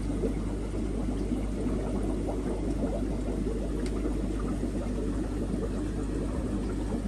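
Steady bubbling and trickling of aquarium water from the tank's filtration, with a low steady hum under it.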